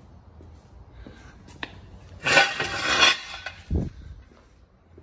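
Steel jack stand clanking as it is handled and moved: a metallic clatter about two seconds in, then a dull thump a moment later as it is set down on the concrete.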